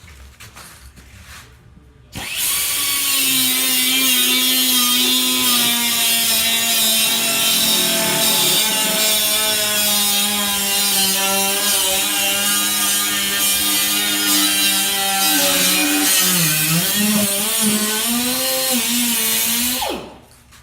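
Power cutting tool cutting out rusted sheet metal, starting about two seconds in and running steadily until just before the end. Its pitch drops and wavers about sixteen seconds in as it loads up in the cut.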